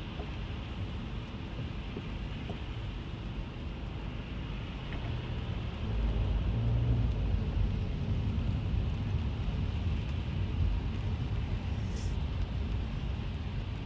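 Car interior while driving in the rain: a steady low road-and-engine rumble under a faint hiss of rain. About six seconds in the rumble swells louder for several seconds before easing back.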